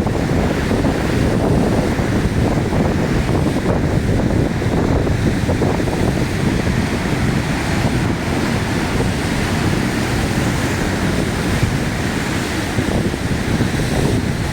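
Heavy surf on the sea with strong wind buffeting the microphone, a steady, loud, low rush with no let-up.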